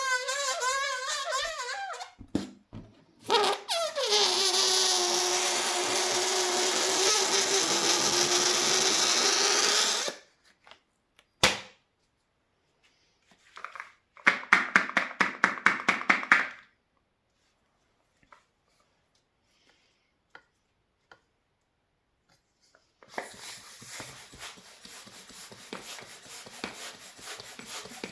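Rubber balloons letting out air: a wavering squeal, then a long hissing rush whose note falls steadily in pitch for about six seconds, a short rapid sputter of the neck fluttering, and near the end a softer rasping hiss.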